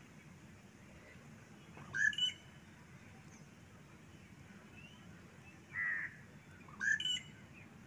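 A bird calling three times over a faint steady background: one short, sharp call about two seconds in, then two more near the end.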